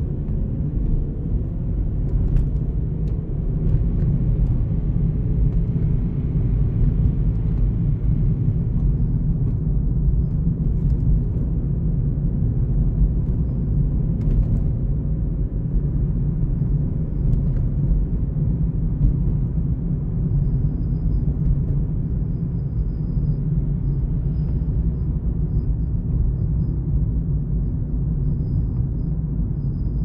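A car being driven at low speed through town streets: a steady low rumble of engine and tyres on the road.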